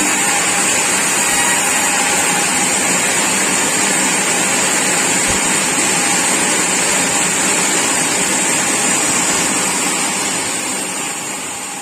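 Sawmill machinery running with a steady, loud, noisy drone and a strong high hiss, fading out near the end.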